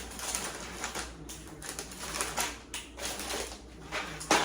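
Crinkly plastic snack packaging rustling and crackling in irregular bursts as the packs are handled, with one sharp knock near the end.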